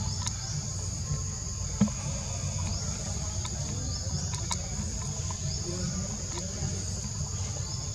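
Steady insect chorus, a continuous high buzz, with faint short chirps now and then and a low rumble underneath.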